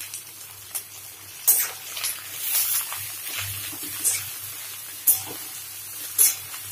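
Chopped onion, capsicum, green chillies, garlic and ginger sizzling in hot oil in a wok: a steady hiss with four sharp spits and crackles.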